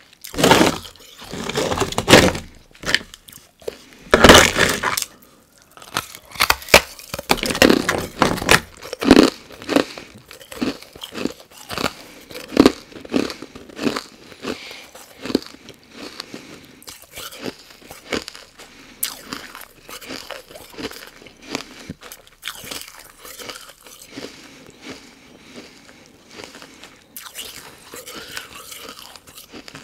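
Carbonated ice being bitten and chewed close to the microphone: loud crunches, heaviest in the first few seconds, then a long run of smaller, quicker crunches as it is chewed down.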